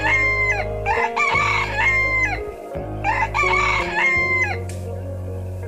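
A rooster crowing three times in quick succession, each crow about a second long and ending in a drawn-out note that falls away. A steady background music bed runs under it.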